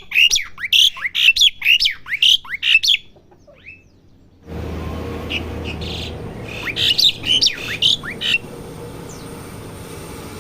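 Young Asian pied starling practising its song: a quick run of short, sharp whistled chirps, about four a second, then a pause and a second, shorter burst of chirps. A steady hiss sits under the second burst.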